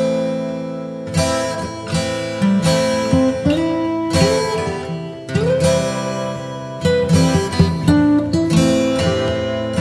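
Background music of a solo acoustic guitar, plucked notes and strums with a few sliding notes.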